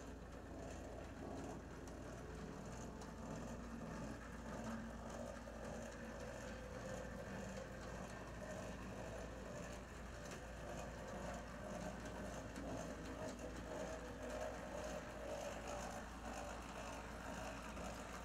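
HO-scale brass model steam locomotive, a New York Central 4-6-0, running along the track: its can motor and gear drive whir steadily, with faint ticking from the wheels and mechanism.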